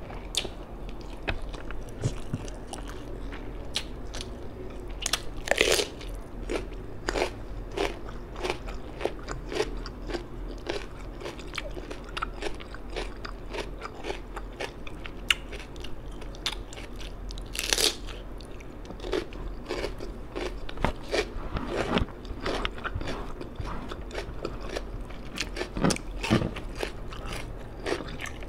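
Close-miked eating: continual chewing and crunching as a meal of rice, fish and raw cucumber is eaten by hand, with two louder crunches about 6 and 18 seconds in.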